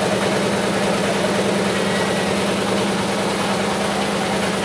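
An engine running steadily at one even low pitch.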